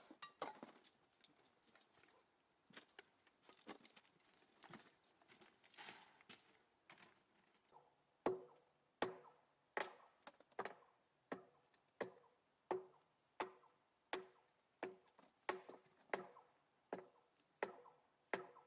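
Faint irregular clicks and knocks, then from about eight seconds in a steady run of sharp knocks, about one every three-quarters of a second, each with a brief ring.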